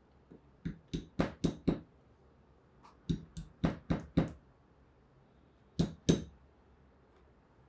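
Light knocks of small 3D-printed plastic letter tiles being handled on a hard work surface. There are about five quick taps near the start, another cluster of about five around three to four seconds in, and two more near six seconds.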